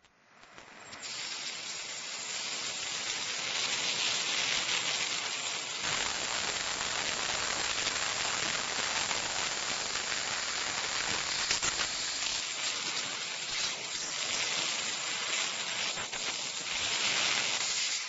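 CNC laser cutting machine cutting sheet metal: a steady high hiss of assist gas blowing through the cutting nozzle. It builds up in the first second or two, then holds with small dips, and falls away at the end.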